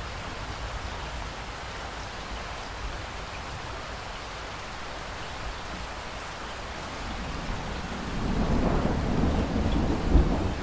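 Steady rain falling, with a roll of thunder building up about three-quarters of the way through and cracking loudest near the end.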